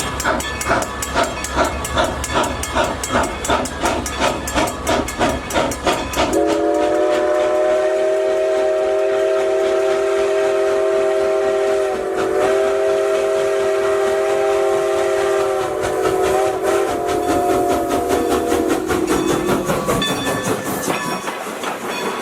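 Train running with a rhythmic chugging of a little over two beats a second. About six seconds in it sounds a long, steady chord blast of its whistle or horn. The blast dips briefly midway, wavers near the end, and stops about twenty seconds in.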